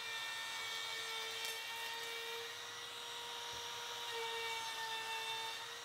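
Milwaukee cordless trim router running at full speed, a steady high whine over a hiss, as its chamfer bit cuts along the edge of a white oak bench rail. The woodworker says this cut tears out the oak's edge.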